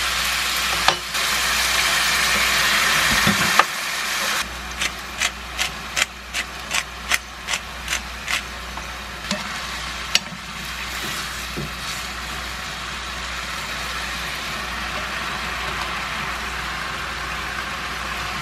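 Spaghetti, vegetables and a splash of pasta water sizzling in a frying pan, a steady hiss, while a wooden spatula stirs and tosses them. About four seconds in comes a run of about a dozen sharp taps, roughly one and a half a second, as the spatula knocks against the pan.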